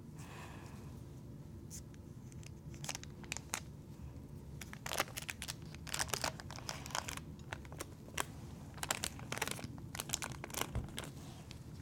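Paper butter wrapper crinkling and tearing as a stick of butter is unwrapped, in irregular short crackles with scattered clicks and light knocks over a low steady hum.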